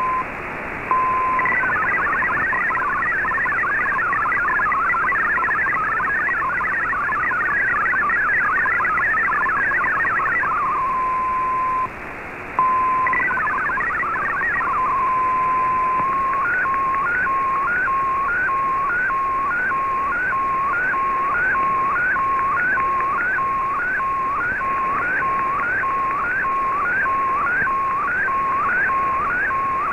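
Shortwave Radiogram MFSK64 digital-mode signal from an Icom IC-R8600 receiver: fast warbling data tones hopping between about 1 and 2 kHz, separated by a steady tone near 1 kHz, with a brief dip near the middle. From about halfway a picture is being sent line by line, heard as a regular repeating chirp that rises from the steady tone, about one and a half a second.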